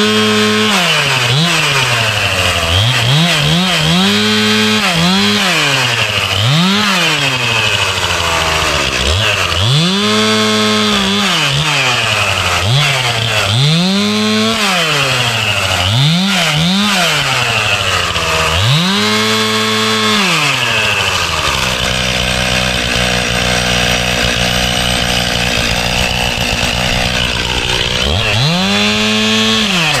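Chainsaw revved to full throttle and let back down over and over while cutting up wood. About two-thirds of the way through it idles steadily for several seconds, then revs up once more near the end.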